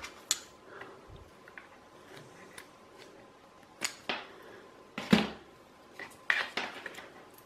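Small clicks and taps as copper wire and metal parts are handled on a DC motor's brush plate, several scattered sharp ticks with the loudest about five seconds in.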